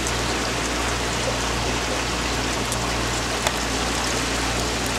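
Steady rushing hiss with a low steady hum beneath it, unchanged throughout, and one faint sharp click about three and a half seconds in.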